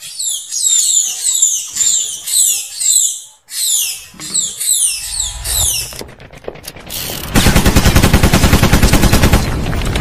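Fledgling munias (emprit) giving rapid, high, descending begging chirps, impatient to be hand-fed. About six seconds in, this gives way to an intro sound effect: a low rumble, then a loud, rapid machine-gun-like burst of hits.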